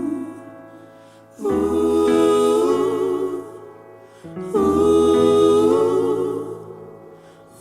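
Slow music: sustained chords with wavering upper notes that swell in twice, about three seconds apart, and fade away.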